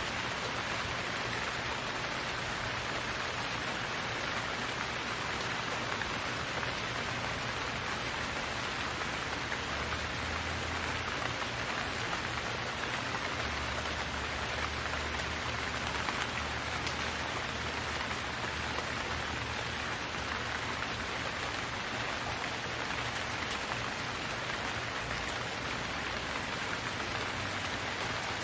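Steady rainfall, an even hiss of rain on hard surfaces.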